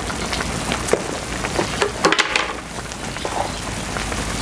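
Pot of duck stew boiling hard over a wood fire: a steady bubbling hiss with small crackles and pops from the burning firewood, and a brief louder scraping rush about two seconds in.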